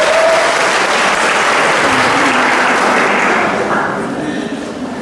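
Audience applauding, a steady clapping that fades out near the end.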